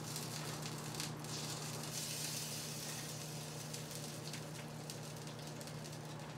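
Sweet potato and chorizo chili sizzling steadily in a frying pan as a spatula stirs it, with a few light scrapes of the spatula against the pan. A steady low hum runs underneath.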